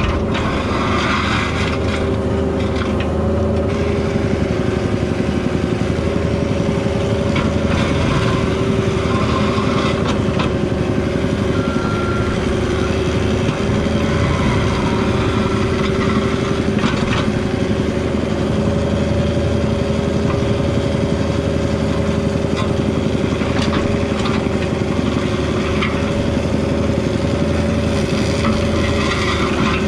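Diesel engine of a Cat 304 mini excavator running steadily under work, with occasional knocks and scrapes scattered through.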